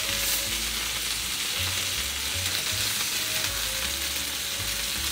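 Browned chicken thighs sizzling steadily in hot oil and rendered chicken fat in a stainless steel paella pan, as they are lifted out with tongs once browning is done.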